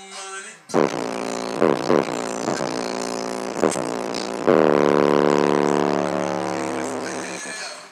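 Loud engine-like revving played back through a home subwoofer system: several quick rises and falls in pitch, then a long held buzzing tone from a little past the middle that slowly fades away.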